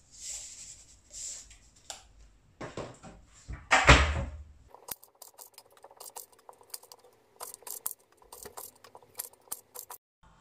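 Kitchen knife slicing brinjal on a wooden cutting board: a run of quick, irregular taps as the blade meets the board. Before it there is soft handling noise and one loud knock about four seconds in.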